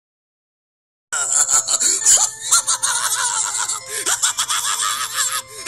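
Film audio of a clown character's wavering, drawn-out laugh over music, starting about a second in.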